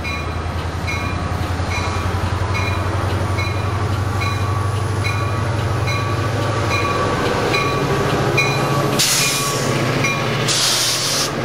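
Coaster F40PHM-2C diesel locomotive approaching and passing close by, its engine a steady low drone that grows louder as it nears, while a bell rings about one and a half times a second. Near the end, two bursts of rushing air come as the locomotive goes by.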